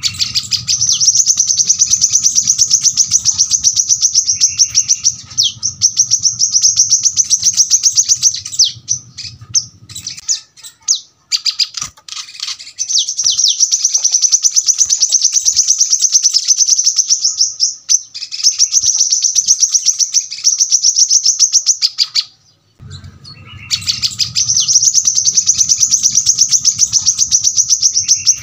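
Brown-throated sunbird (kolibri kelapa) singing its rapid, dense 'tembakan' song: long high-pitched rapid-fire trilled phrases of several seconds each, four of them with short pauses between. A low steady hum sits under the first and last phrases.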